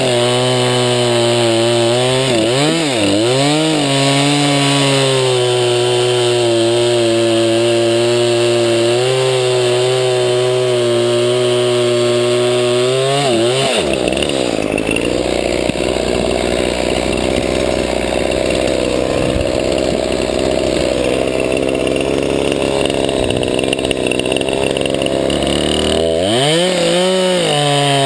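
Craftsman 20-inch 50cc two-stroke chainsaw running at high revs, with a couple of throttle dips near the start. About halfway the engine pitch drops and the sound turns rough and noisy as the chain is pulled down cutting through a log. It revs back up free near the end.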